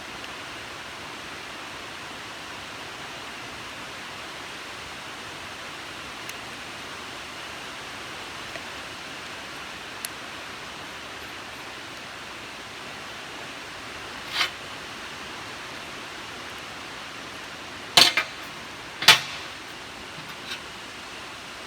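Steady hiss of a TIG welding arc from a hitbox TIG200PACDC welder. A few faint clicks are heard, then sharp knocks near the end, the loudest two about a second apart.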